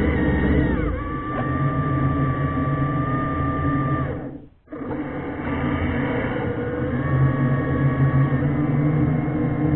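Underwater ROV thruster motors whining over a low hum, with several steady tones that step up and down in pitch as the thrusters change speed. The sound drops out briefly about halfway through.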